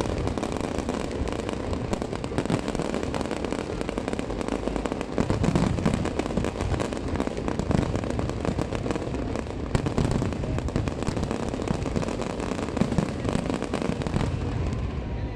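Aerial fireworks display: a dense, continuous run of overlapping bangs and crackling pops from bursting shells.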